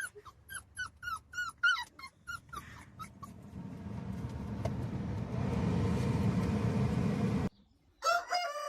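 A dog whimpering and yelping in a rapid run of short cries, each falling in pitch, about three a second. The cries give way to a rushing noise that grows louder and cuts off abruptly, and another animal's cries start near the end.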